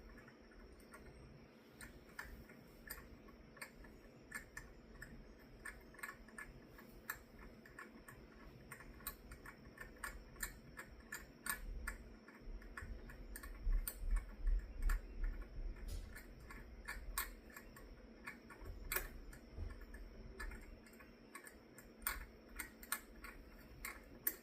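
Screw extractor slowly backing a damaged fastener out of a drilled aluminum block: irregular light clicks and ticks, with low thumps from handling the work around the middle.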